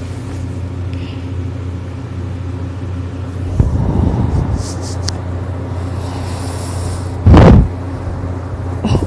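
A person snoring in sleep. A low rumbling snore comes about three and a half seconds in, and a shorter, much louder one about seven seconds in, over a steady low hum.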